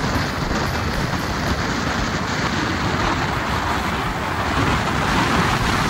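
Steady rush of wind and road noise heard from a motorcycle moving at speed, with no clear engine note standing out.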